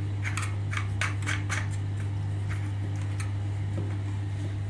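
Light clicks and clinks of small hard parts being handled, several in quick succession in the first two seconds, then sparser, over a steady low hum.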